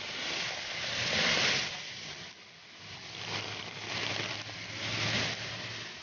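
Traffic passing on a rain-soaked street: tyres hissing on the wet road in several swells, over steady rain, with a low engine hum coming in about halfway.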